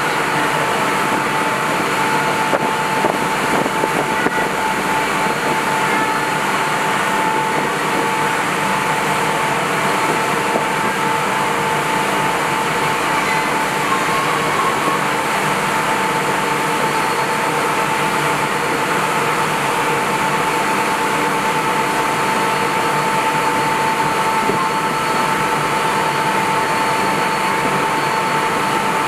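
High-speed ferry running at cruising speed: a steady, loud rush of engine and water noise with a constant high whine that holds one pitch throughout.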